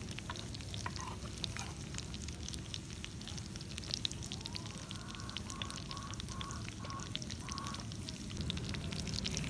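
Crab and egg mixture sizzling on a hot cooking rock, with a steady low rumble and many small crackling pops. About five seconds in, a row of about six short repeated notes is heard.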